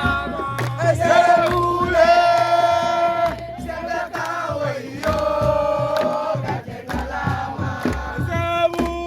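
A group of voices singing and chanting together in long held notes, over a pulsing drum beat and scattered sharp knocks.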